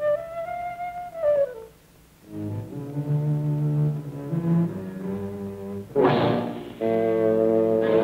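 Orchestral cartoon score. A high held melody slides down and breaks off, and lower string and brass notes follow. About six seconds in a sudden noisy crash hits, and the music carries on after it.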